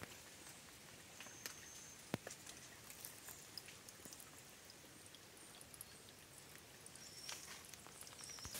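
Near silence with faint scattered ticks and crackles, and a few short high chirps: one about a second and a half in and two near the end.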